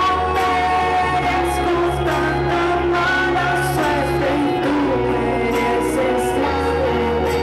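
A woman singing a song with long held notes into a microphone, accompanying herself on an acoustic guitar, played live.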